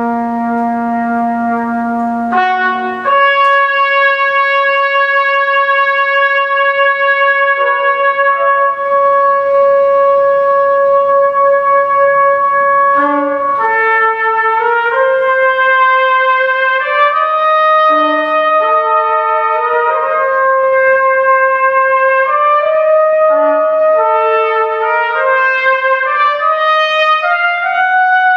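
Two trumpets playing a duet. After a change of notes, one long note is held for about ten seconds, then the two parts move against each other in shorter, overlapping notes.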